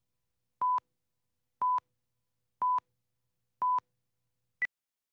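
Countdown leader beeps before a TV commercial: four short, steady-pitched beeps about a second apart, then one shorter, higher-pitched blip near the end.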